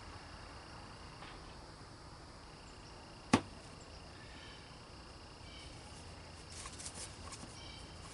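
One sharp click, the loudest sound here, about three seconds in, from parts of an unboxed pressure washer being handled. A few faint clicks follow near the end, over a low steady hum.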